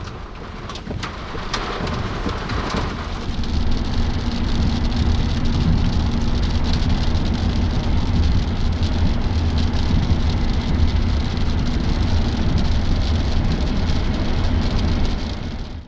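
Heavy rain on a vehicle with a steady low vehicle hum underneath, a few knocks in the first few seconds.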